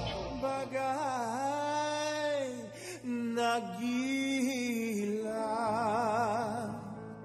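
A male singer's drawn-out melismatic vocal line over soft musical backing, sliding between notes and then holding a long note with vibrato that fades near the end.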